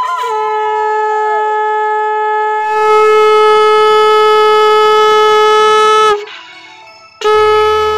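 Conch shell (shankha) blown in long, steady blasts: one note held for about six seconds, then after a short break a second blast near the end. Conch blowing is the customary auspicious call during Bengali wedding rites.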